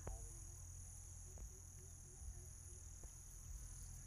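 A faint, steady, high-pitched insect chorus of chirring crickets, with a few faint knocks in the foreground.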